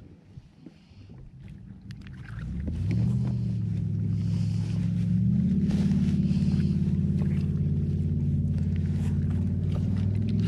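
Boat motor starting up about two seconds in, stepping up in pitch twice, then running at a steady hum.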